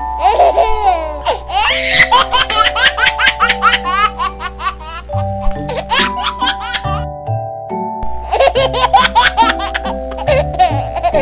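Background music with a baby giggling and laughing over it; the bass drops out briefly about seven seconds in.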